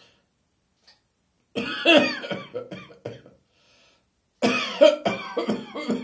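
A person coughing in two hacking fits, the first about a second and a half in and the second just before the end, each a quick run of harsh coughs.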